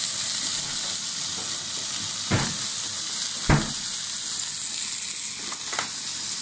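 Beef fillet steaks sizzling in a frying pan, a steady hiss, with two sharp knocks a little after two seconds and about three and a half seconds in.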